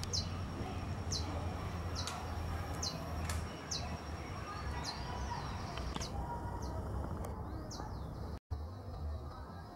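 A small bird repeating a short, high, falling chirp about once a second, over a steady low rumble. The audio drops out briefly near the end.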